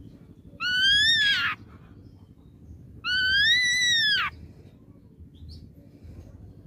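Ashy drongo calling: two loud whistled notes about two and a half seconds apart, each about a second long and arching up then down in pitch.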